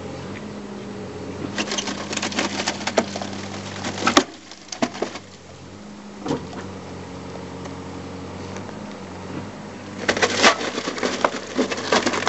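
A machine engine hums steadily under two spells of irregular cracking and crunching as the old steel-reinforced concrete sewer pipe breaks up during pipe bursting. A sharp crack ends the first spell about four seconds in, and the second starts near the end.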